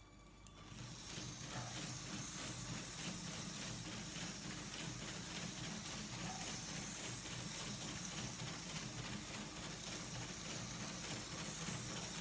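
A LEGO train running around a spiral plastic track: steady motor and gear whirr with rapid, even clicking of the wheels and mechanism. It starts about half a second in.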